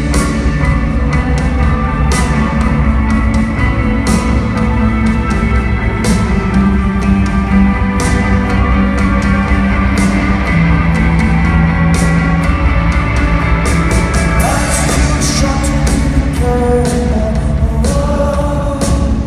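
Rock band playing live in an arena, with drums and frequent cymbal hits, guitars, bass and a singing voice, loud and continuous.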